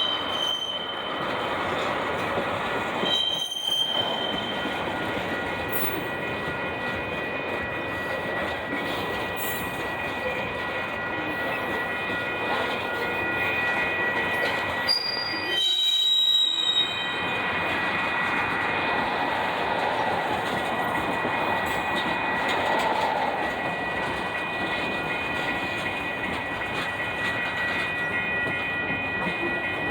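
Freight cars of a long, heavy Union Pacific mixed freight rolling past, a continuous rolling roar with steady high-pitched wheel squeal. Short sharper squeals come about three seconds in and again near the middle.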